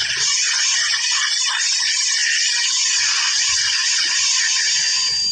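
Dental drill (a handpiece with a burr) running steadily as it cuts decay out of a molar: a loud hiss with a faint high whine. It cuts off suddenly at the end.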